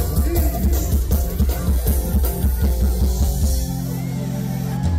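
Live calypso band playing with drums and bass on a steady beat. About three and a half seconds in, the beat breaks off and a held chord rings on.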